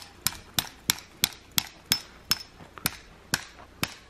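A hammer driving a sturdy tent peg into the ground to stake down a large shelter: about a dozen sharp, even strikes, roughly three a second.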